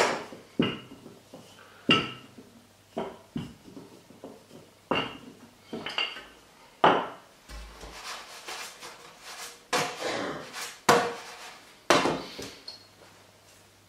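Wooden rolling pin knocking and rolling on a stone worktop while tortilla dough is rolled out: sharp clacks about a second apart, with a rougher rolling stretch in the middle. A last knock near the end comes as the frying pan on the hob is handled.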